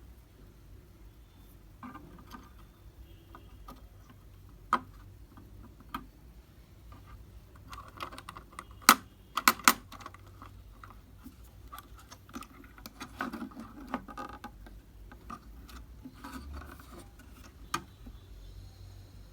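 Hands handling a processor and motherboard socket parts: scattered light clicks and rustling, with a quick cluster of sharp clicks about halfway through and a few single clicks.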